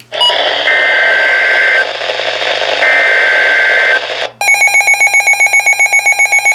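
Emergency Alert System data header: two roughly one-second bursts of screeching digital tones over radio hiss, for a severe thunderstorm warning. At about four seconds in the hiss cuts out and a fast-pulsing electronic alarm tone takes over, beeping about seven or eight times a second.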